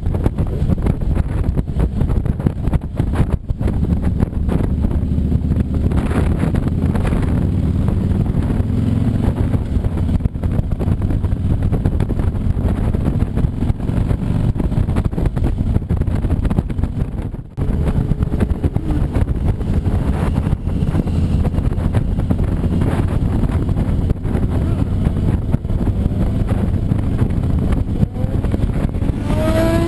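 Motorcycle engine running steadily while riding, with wind noise over it. A brief rising whine comes near the end.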